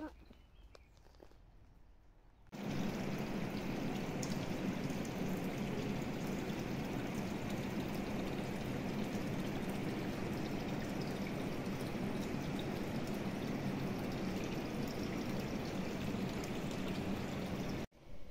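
Steady rush of running water, starting abruptly about two and a half seconds in after a quiet stretch and cutting off suddenly just before the end.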